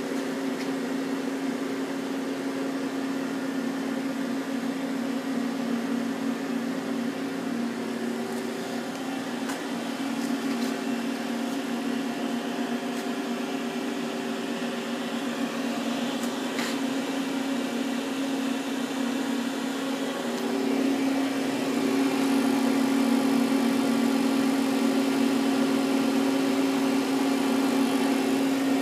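Steady mechanical hum of a powered-up Nakamura-Tome TMC15 CNC lathe, growing somewhat louder about two-thirds of the way through.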